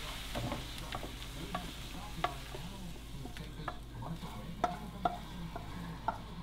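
A wooden spoon scraping and tapping against a hot skillet as sautéed onions, bell pepper and mushrooms are scooped out, with a faint sizzle from the pan underneath. The taps come one at a time, unevenly spaced, about eight of them.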